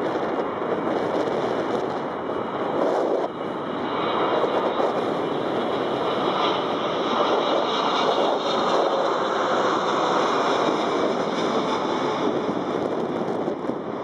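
Jet engine noise of a Boeing 777F freighter, two GE90 turbofans, passing low overhead on landing approach. It is a steady rushing roar that swells about four seconds in, stays loud for most of the pass and eases off near the end.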